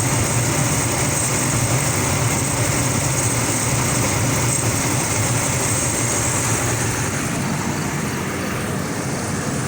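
Steady mechanical running noise of a vehicle: a low hum under a high hiss, unchanging throughout. This is the unidentified noise that the owner ties to a vibration and is trying to diagnose.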